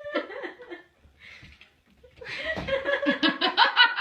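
A person laughing: a short burst of laughter at the start, then a run of rapid laughter that builds up over the last two seconds.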